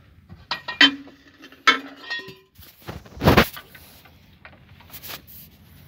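Metal clinking: two or three sharp strikes of steel on steel in the first two seconds, the second and third ringing briefly. About three seconds in comes a short, louder dull rustling thump.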